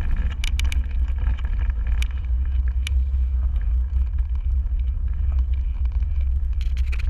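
Steady low rumble of wind buffeting the microphone during a fast descent, with scattered sharp clicks and knocks.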